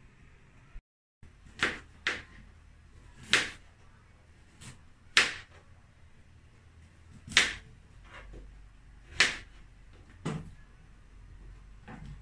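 Knife chopping a potato on a cutting board: about ten sharp knocks at uneven intervals, roughly one a second.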